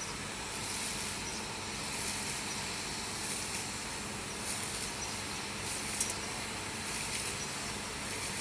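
Steady background hiss and hum, with a few faint, brief scuffs of hands and a rag working around a welder-generator's fuel filter.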